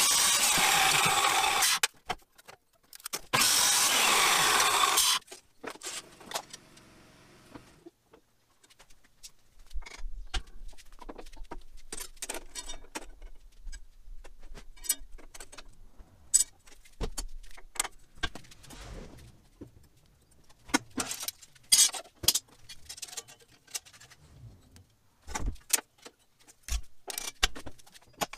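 Abrasive chop saw cutting steel tubing in two cuts of about two seconds each, a loud grinding that stops sharply. After that come scattered clicks and clanks of steel strips being handled and bent on a sheet-metal brake.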